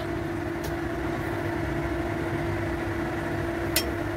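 Metal spatula scraping stir-fried bean sprouts out of a steel wok, with two sharp taps of the spatula on the wok, one about half a second in and one near the end. Under it runs a steady low hum with one constant tone.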